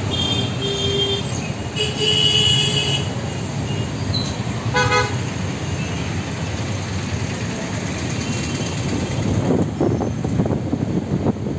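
Street traffic with vehicle horns honking: several high-pitched horn toots in the first three seconds and a short, lower toot about five seconds in, over a steady traffic rumble.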